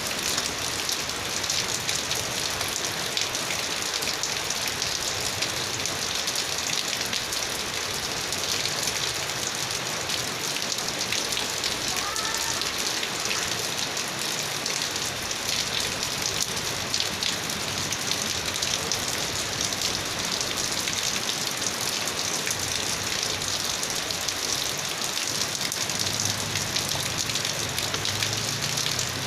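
Heavy rain falling steadily: a dense, even hiss of countless drops striking a surface, with fine patter throughout.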